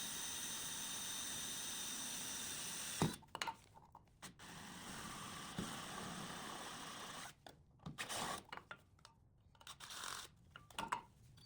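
Electric drill running in two stretches of a few seconds each, drilling a hole for mounting hardware in the back of a metal electrical box, followed by a few light clicks and knocks of handling.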